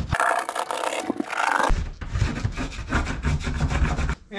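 Pencil rubbing and scratching along wooden bulkhead planking as a horizontal line is marked, in quick repeated strokes. The sound turns duller with low knocks about a second and a half in.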